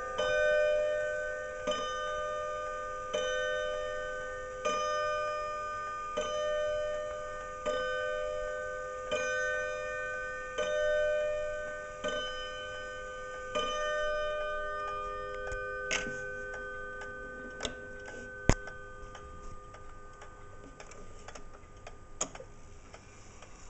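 Kieninger triple-chime wall clock striking the hour: about ten ringing strokes roughly a second and a half apart, each one fading before the next. After the last stroke the ring dies away, leaving the movement's quiet ticking and a few clicks.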